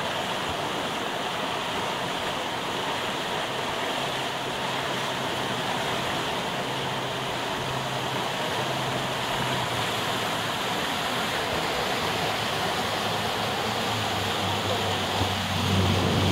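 Steady rush of white water in fast tidal rapids. A low engine hum from a boat comes in and grows louder near the end.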